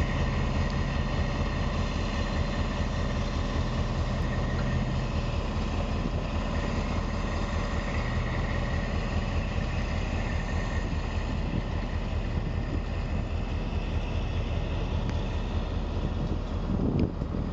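Diesel engine of a lowbed semi truck running at low speed as the truck manoeuvres with its trailer, a steady engine drone that swells briefly near the end.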